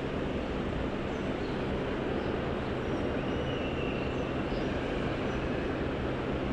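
Steady low mechanical rumble and hum, with a faint high whine briefly about three seconds in.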